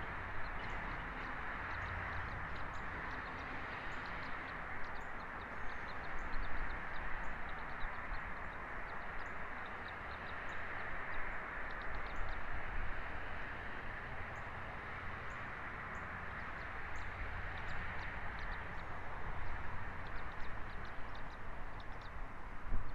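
Steady outdoor rushing noise, like wind through trees, with many short, high chirps of small birds scattered throughout.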